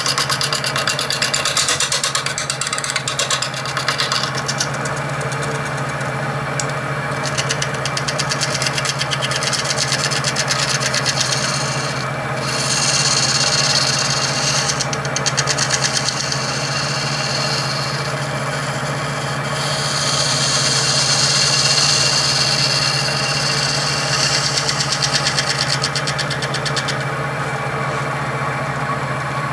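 A wood lathe motor runs steadily while a hand tool is held against the rim of the spinning headstock pulley, scraping it, to smooth the pulley's JB Weld repair. The scraping rises and falls, loudest in two stretches through the middle.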